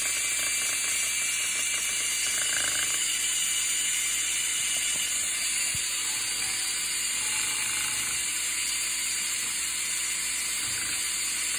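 DeWalt cordless drill running steadily, spinning a wooden spoon that whips egg whites in a glass bowl.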